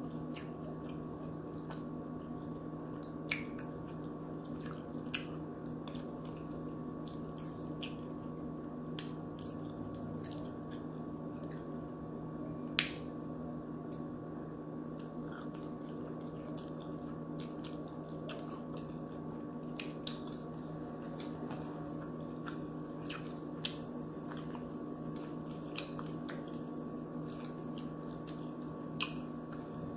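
Close-up eating sounds of a mukbang: chewing and wet mouth clicks, with a fork now and then clicking on a plate. A steady low hum runs underneath.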